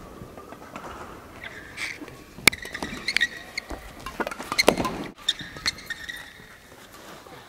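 Badminton rally: several sharp racket hits on the shuttlecock, the loudest about two and a half seconds in, mixed with short high squeaks of court shoes on the court surface.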